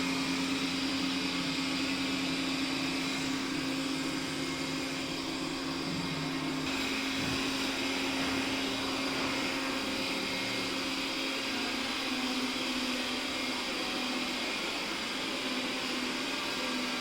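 Robot vacuum cleaner running steadily: a constant motor hum under a whirring hiss, whose tone shifts slightly about six and a half seconds in.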